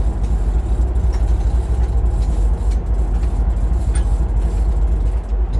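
Sport fishing boat's engine running with a steady low rumble.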